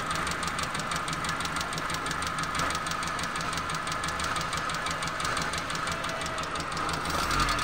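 Suzuki Alto petrol engine idling with the tappet cover off, its valve gear making a fast, even ticking. The tappets had been making noise, and two of them were loose.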